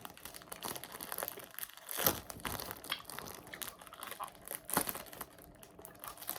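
Irregular crinkling and crackling of a Fruit Roll-Up's plastic wrapper being handled while it is eaten, with two sharper crackles, about two seconds in and near five seconds.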